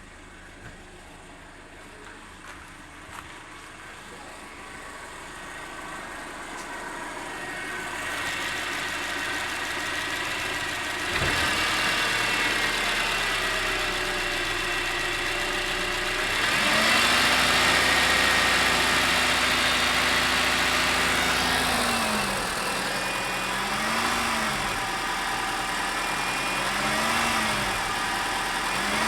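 Car engine running and being listened to for a knock. It grows louder over the first ten seconds and steps up sharply about eleven seconds in. It is held at raised revs for about five seconds, then revved briefly three times.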